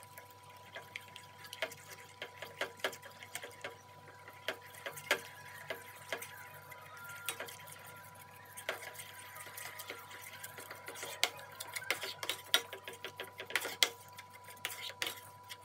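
A steel spoon stirs and scrapes continuously around a stainless steel pan, with irregular soft clicks and taps against the metal, as rice water thickens into a paste over a low flame.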